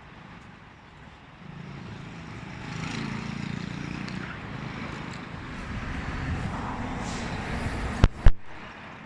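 A vehicle passing by, its rumble swelling and then easing off. Near the end come two sharp knocks in quick succession.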